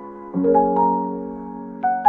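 Background music on a piano-like keyboard: a few ringing notes struck one after another, each fading slowly, with a fresh chord about a third of a second in.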